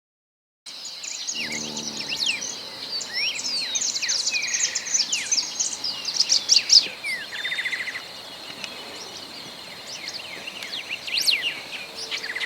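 Several wild birds chirping, trilling and whistling over one another, over a steady high insect drone, after a brief silence at the start. A short low, pitched call sounds about a second and a half in.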